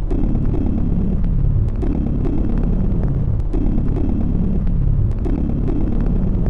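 Dark, heavy electronic demo soundtrack: a loud low droning rumble with a falling sweep and a sharp click repeating about every 1.7 seconds, and lighter clicks in between.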